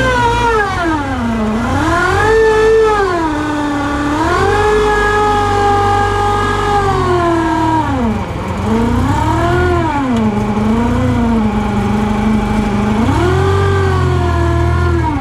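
Volkswagen Corrado engine revving, its pitch repeatedly falling away and climbing again, with short steady stretches in between.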